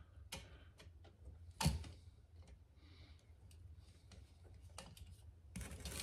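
Faint scattered clicks and ticks as a pulled-out wall receptacle and its wires are handled, with one sharper click about a second and a half in and some rubbing near the end.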